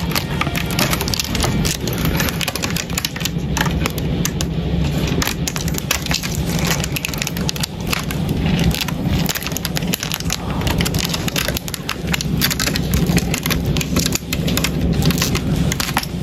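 Dense scratching, crackling and clicking of stag beetles' claws and mandibles on bark as they grapple, heard close up, over a steady low hum.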